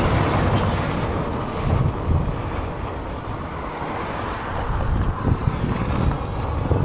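Wind buffeting the microphone of a rider on a fat-tire electric bike, over an uneven low rumble from the ride.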